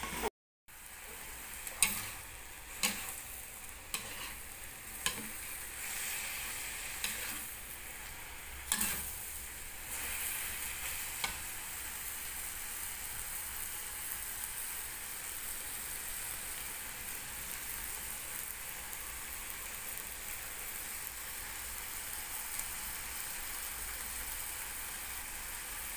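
Noodles and greens stir-frying in a wok: a steady sizzle, with a metal spatula knocking against the pan several times in the first half.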